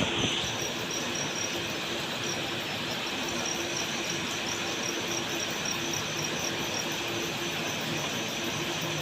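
Heavy rain falling steadily, an even rushing hiss that does not let up.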